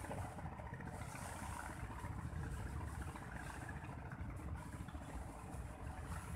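Wind buffeting the microphone: an uneven, gusting low rumble with a fainter hiss above it.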